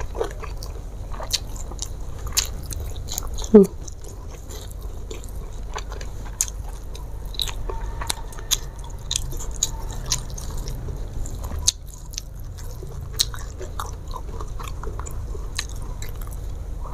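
Close-miked eating sounds of a person chewing rice and mackerel: wet mouth smacks and small clicks throughout, with a short falling hum about three and a half seconds in.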